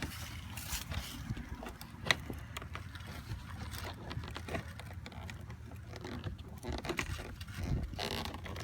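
Flat-head screwdriver prying at a car's plastic interior door handle trim: scattered light scrapes and clicks, the sharpest about two seconds in, over a steady low hum.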